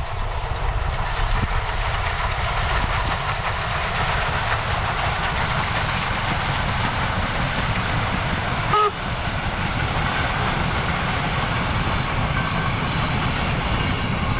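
Steam locomotive 50 3552, a German class 50 2-10-0, running past with its train of passenger coaches: a steady loud rumble and rattle of the engine and the coaches rolling along the track.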